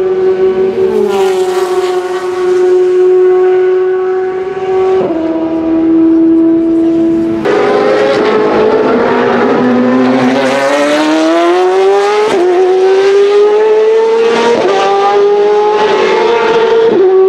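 Ferrari 458 Italia GT2 race car's naturally aspirated V8 at high revs on track. The pitch climbs under acceleration and drops sharply at each upshift, three times in the second half.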